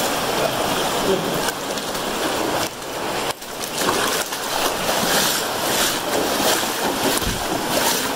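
Shallow river water splashing and washing around the legs of hikers wading through it, a steady noisy rush.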